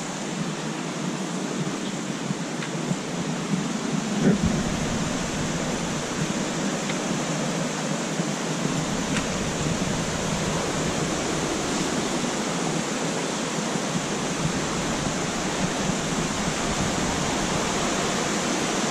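Steady rush of a rocky bush stream, growing a little louder as it comes nearer, with a single bump about four seconds in.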